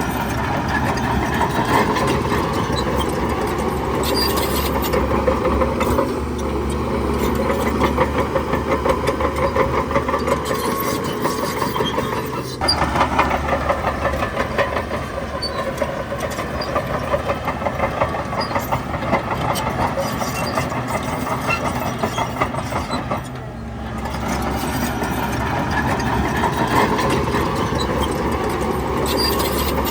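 Bulldozer's diesel engine running under load, with dense rattling. The sound changes abruptly twice, about 13 and 23 seconds in.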